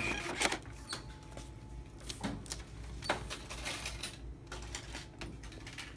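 Checkout register's receipt printer running out a long receipt, with scattered clicks and knocks of handling at the counter.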